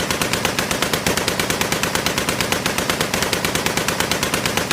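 Machine-gun fire in one long unbroken burst, about ten rounds a second at an even, steady pace.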